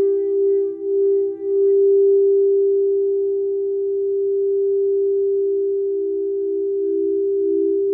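Quartz crystal singing bowls ringing with sustained, nearly pure tones in two close pitches. The pulsing wobble steadies about a second and a half in, and the lower tone starts to waver again about halfway through.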